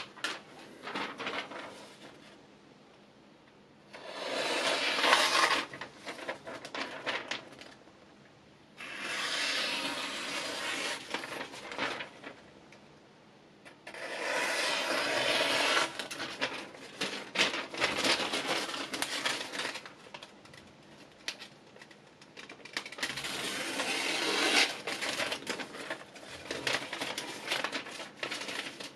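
Whetstone rubbing along the steel edge of a knife blade in sharpening strokes, coming in bouts of a few seconds each with short pauses between.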